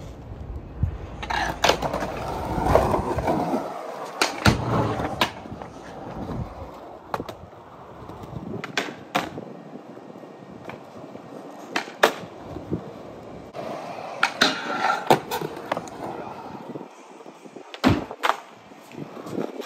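Skateboard wheels rolling on smooth concrete, with about a dozen sharp clacks of the board popping and landing. Near the end comes a loud clack as the board hits the top of a low ledge box.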